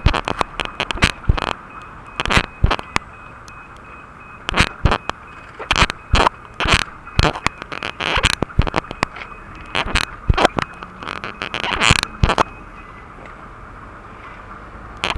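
Level crossing warning bell ringing faintly under a steady rush of noise, cut across by many irregular sharp clicks and crackles. The bell stops about thirteen seconds in.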